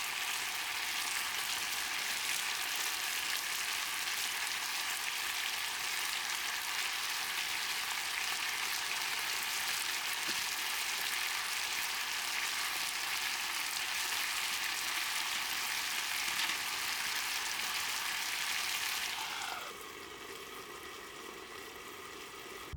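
Food sizzling steadily in a hot pan; about three-quarters of the way through the sizzle abruptly drops to a quieter level.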